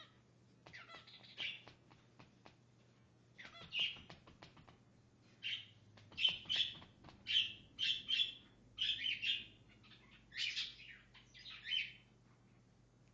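Male cockatiel singing: a string of short whistled, warbling notes that come thick and fast through the middle, with faint clicks between them.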